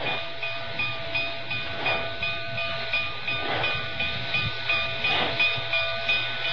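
B&O 'Big Six' steam locomotive working a train out of a siding, its exhaust chuffing in a steady rhythm of about two to three beats a second.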